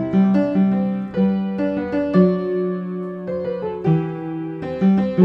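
Piano music: a slow melody of separate notes over a low bass line, with one note held longer around the middle.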